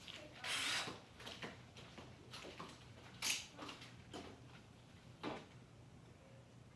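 Scattered clicks and short scrapes of tools and hardware being handled, with no drill running; the loudest is a brief scrape about half a second in, another just after three seconds.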